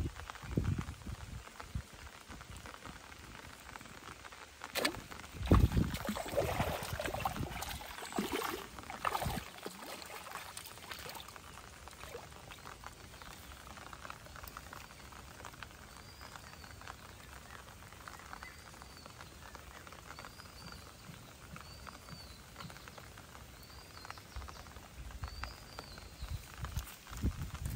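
Rain pattering on pond water, with loud irregular splashing and thrashing about five to ten seconds in as a hooked fish is pulled in. Faint, small high chirps repeat through the second half.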